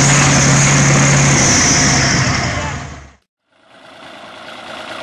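Large articulated diesel tractor's engine running loud and hard. It fades and cuts off about three seconds in, and after a short gap a smaller farm tractor's engine runs more quietly.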